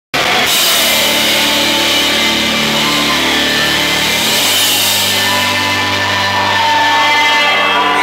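Heavy metal band playing live, heard from the crowd: loud sustained guitar and bass chords, with the low note changing about four seconds in.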